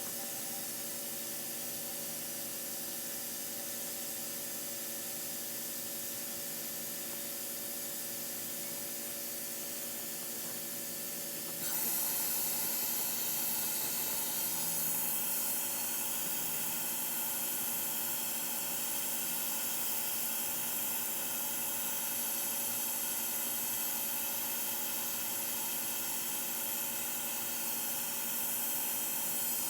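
Small electric blower running with a steady airy hiss and a motor hum. It gets louder and brighter about twelve seconds in.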